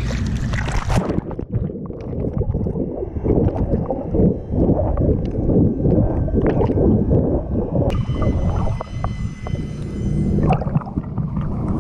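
Water heard through a camera held underwater. After about a second the sound turns muffled, with gurgling and sloshing as a swimmer moves her arms and legs. From about 8 to 10.5 seconds a steady high-pitched whine sits on top.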